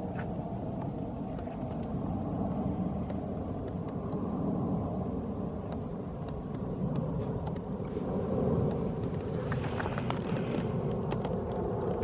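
Boeing 777-200 jetliner on final approach with its gear down, its twin jet engines giving a steady rumble with a faint low hum.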